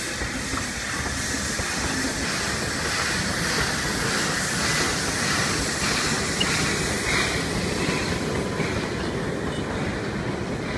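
Puffing Billy's narrow-gauge steam train, locomotive 6A, an NA class 2-6-2T tank engine, hauling its open carriages over a timber trestle bridge: a steady rumble and clatter of wheels on the rails.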